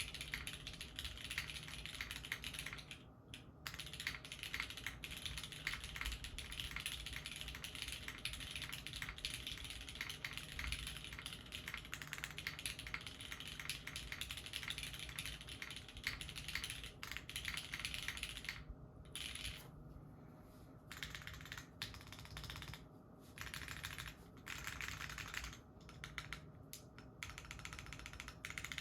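Steady typing on a custom mechanical keyboard: lubed, heavily broken-in Cherry MX Red linear switches in an o-ring-mounted board with an aluminium plate and GMK keycaps. The keystrokes come as a dense clatter, with short pauses about three seconds in and a few times around twenty seconds in.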